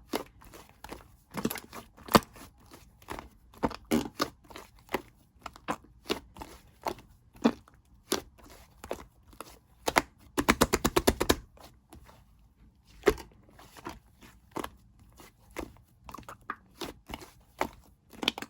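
Soft slime being kneaded and mixed by hand, giving irregular sticky pops and clicks, with a quick burst of rapid crackling about ten seconds in.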